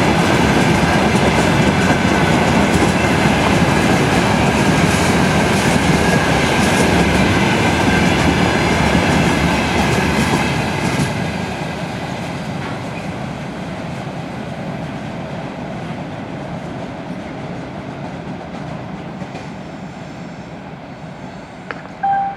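Freight train rolling past on the rails, loud and steady for about ten seconds, then fading as it moves away. A short tone starts right at the end.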